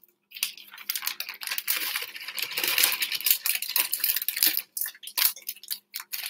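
Plastic bag of brown sugar crinkling and crackling as it is handled and squeezed, with the sugar being poured out into a glass mixing bowl.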